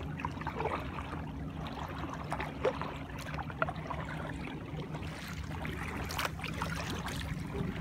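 Kayak paddles dipping into calm water, with small splashes, drips and trickles scattered throughout, muffled as if through a waterproof camera case, over a steady low hum.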